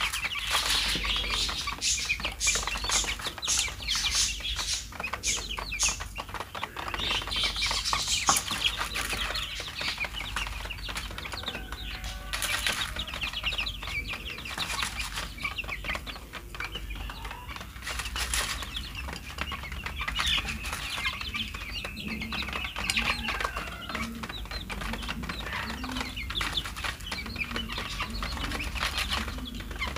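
A flock of young chickens peeping and clucking while pecking grain from a plastic feed tray, with many quick taps, thickest in the first few seconds.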